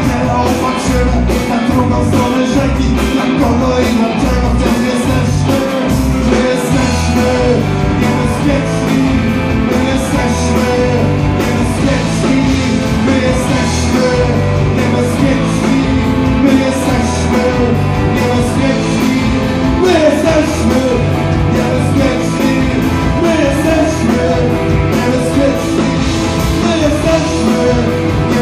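Rock music from a band, playing loud and steady over a pulsing bass line.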